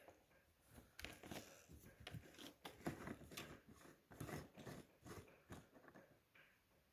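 Faint, irregular clicks and scrapes of a 3D-printed plastic quick fill cap being handled, thinning out near the end.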